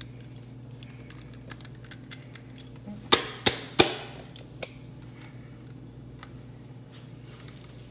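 Three sharp knocks in quick succession, then a fainter one, from a salsa jar whose stuck lid is being struggled with to get it open.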